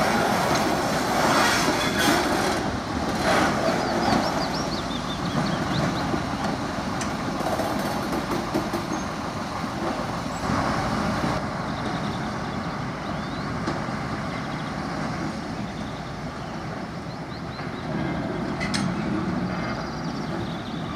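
Small diesel shunting locomotive running steadily as it moves a string of freight wagons along the yard track, with a few short high chirps a few seconds in.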